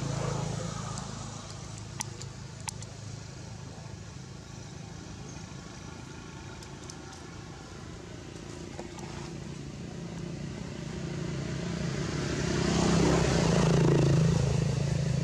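A motor vehicle's engine running, growing louder as it draws near and passes late in the clip, with two faint clicks about two seconds in.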